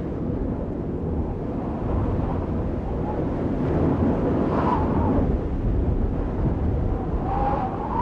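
Steady low rumbling noise that swells slightly, with faint whistling tones about halfway through and again near the end: an outro sound effect laid under the closing credits.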